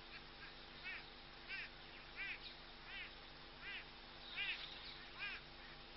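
An animal calling over and over: a short, arching call with several stacked pitches, repeated seven times at about one every three-quarters of a second, faint over a steady background hiss.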